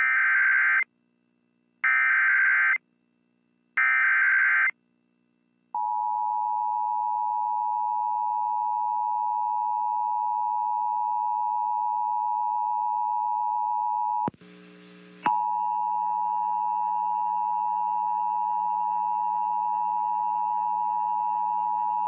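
Emergency Alert System activation: three short bursts of SAME header data tones about two seconds apart, then the long steady EAS attention tone. The tone drops out for about a second with a burst of hiss midway, then resumes. This signals an incoming severe thunderstorm warning.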